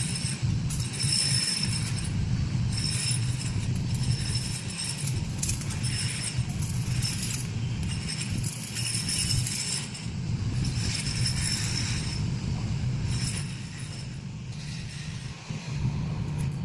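Steady low machine hum, with repeated short patches of high metallic ringing and clinking every second or two.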